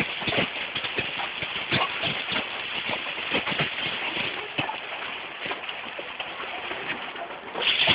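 Hail pelting down: a steady hiss of falling hail with many irregular sharp clatters of hailstones striking. It grows louder and heavier near the end.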